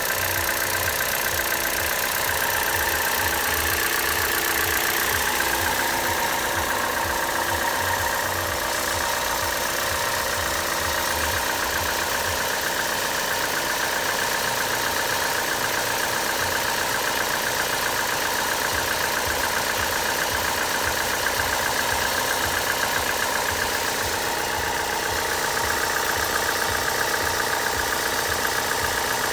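Car engine idling steadily with a rattle in the engine bay around the belt drive.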